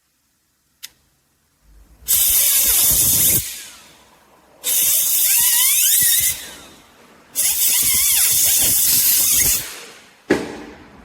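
Three long, loud hissing blasts, each about one and a half to two seconds, with a wavering squeal running through them, after a single sharp click; a shorter hiss starts near the end.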